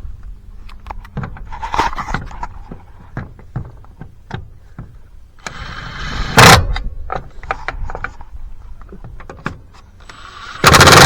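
Cordless drill with a socket running lug nuts onto a wheel's studs, in two short runs, each ending in a loud brief burst as the nut seats. Metal clinks of the socket and nuts come between the runs.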